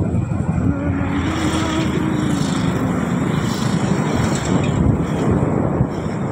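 Motorcycles running along a road, a steady engine hum under rushing road and wind noise; a single steady engine tone stands out through the first half.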